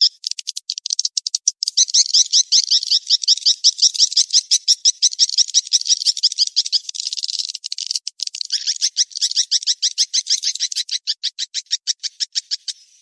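Edible-nest swiftlet calls, as played from a swiftlet-house lure recording meant to draw the birds in to roost and nest: a fast, dense stream of high chirping twitters. About eight seconds in it changes to a slower run of evenly spaced, slightly lower notes.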